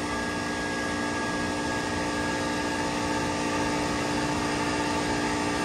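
Daikin AGZ air-cooled chiller running with one 43 hp scroll compressor on circuit 1 just started: a steady machine hum with several held tones. A higher whine fades out about halfway through.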